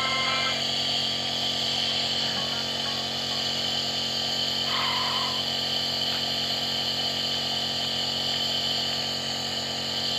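Home nebulizer's compressor running with a steady hum and hiss as it turns liquid medicine into mist for a child's cough.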